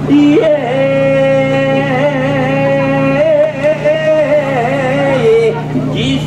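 A man singing an ondo-age festival chant: one long drawn-out phrase of held, wavering notes. A steady low hum runs underneath.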